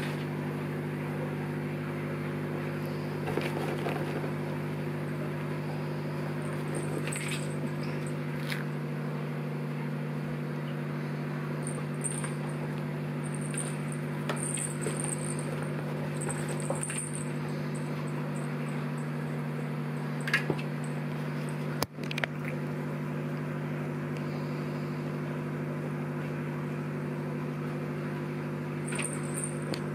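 Small bells on a spring-wire cat toy jingling in short bursts as a kitten bats it, most often in the middle and again near the end, over a steady low electrical hum.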